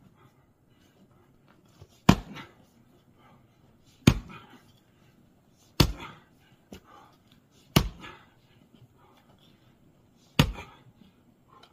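Splitting maul striking firewood rounds on a chopping block, five sharp cracks about two seconds apart, each followed by a brief rattle.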